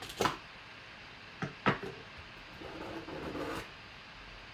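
Knife cutting through tape on a cardboard box: a sharp cut about a quarter second in and two more about a second and a half in. Then the cardboard lid rubs as it slides up off the box for about a second.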